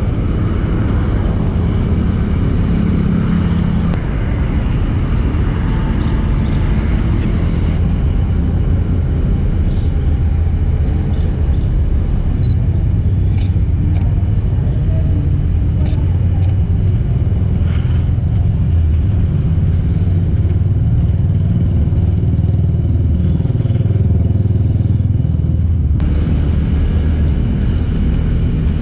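Road traffic: a steady rumble of passing cars and motorbikes, with faint short chirps and clicks above it.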